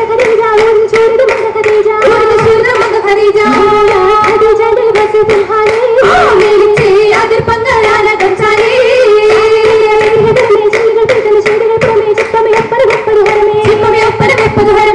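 Oppana performance: voices singing a Mappila song together, a held melody line, over steady rhythmic hand clapping in time.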